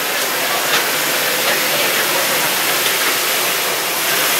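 Steady rushing hiss of an Airbus A330's cabin ventilation air at the boarding door.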